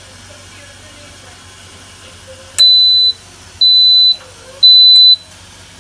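Instant Pot electric pressure cooker beeping three times, each a high steady beep about half a second long, a second apart. This is the signal that the sauté program has started heating.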